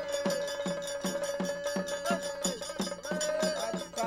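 Traditional Kerala percussion music: a drum struck about four times a second with small cymbals ringing along, under a long held note that stops a little past halfway.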